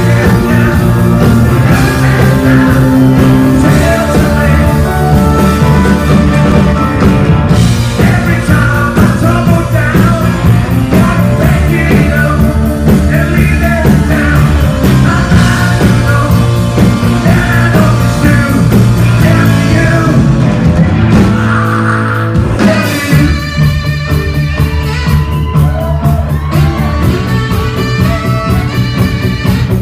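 Live rock band playing loudly, with a lead singer over electric guitars, bass, congas, drums and keyboards. About two-thirds of the way through, the singing stops after a brief drop and a saxophone takes the lead over the band.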